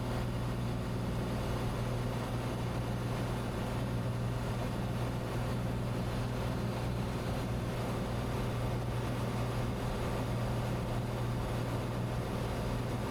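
Cessna 182T's six-cylinder Lycoming IO-540 engine and propeller running steadily in flight: an even, unbroken drone with a strong low hum.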